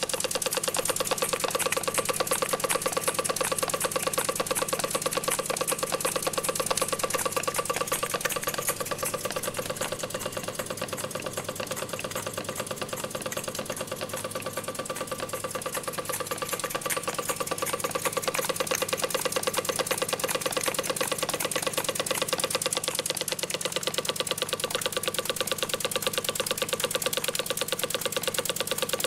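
Jensen model steam engines running at speed: a fast, even chuffing clatter, many beats a second, with a steady tone running under it.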